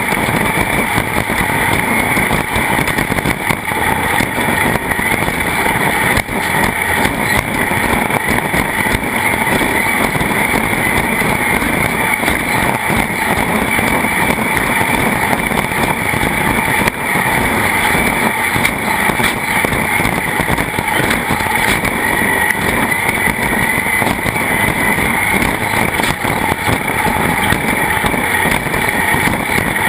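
Loud, steady noise of a vehicle under way, unbroken throughout.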